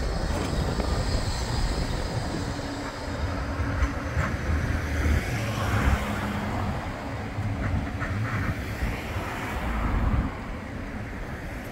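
Bombardier Flexity 2 tram rolling past close by on street track, its running gear rumbling, with a faint high tone in the first seconds. Cars then drive past, about halfway through and again near the end.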